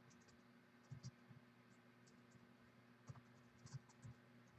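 Faint, scattered clicks of typing on a computer keyboard, a few taps at a time, over quiet room tone.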